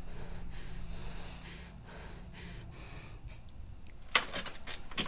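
Quiet room tone with a low steady hum that drops away about a second in. Faint rustles follow, then a sharp click near the end and a softer one just after.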